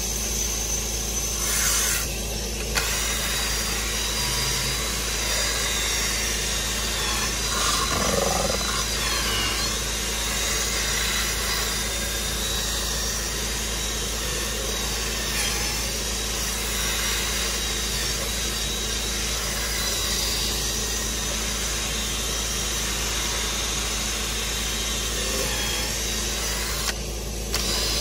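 Cordless drill spinning a scrub brush against a cloth car seat, working shampoo into the fabric, over a steady machine noise.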